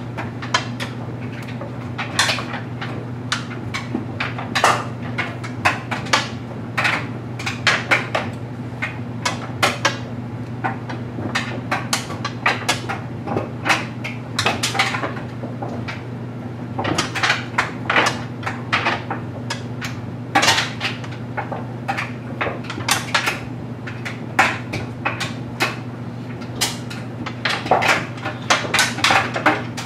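LG Mega Capacity clothes dryer running with a load of stuffed animals tumbling in its drum: a steady low hum under frequent, irregular knocks and clatters as the toys drop against the drum.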